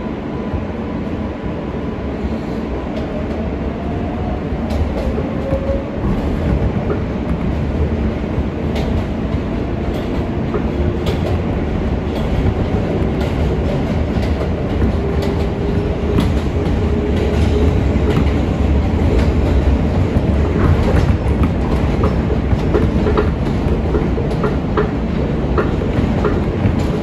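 R143 subway car running along the track, heard from on board: a steady rumble with the traction motors' whine gliding up in pitch, and wheels clicking over rail joints, the clicks coming more often in the second half.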